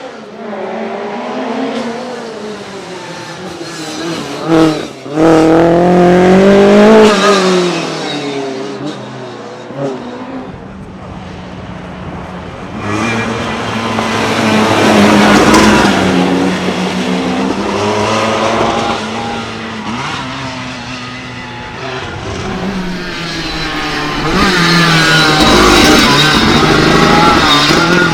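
Lancia Group B rally car engine revving hard, its pitch rising and falling repeatedly as it accelerates and shifts, with a sharp crack about five seconds in.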